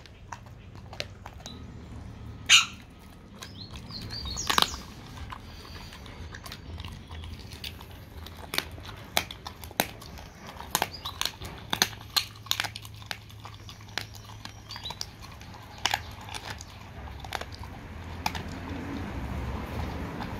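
A dog chewing a raw turkey wing: a run of sharp, irregular crunches as its teeth break through meat and bone, the loudest about two and a half seconds in.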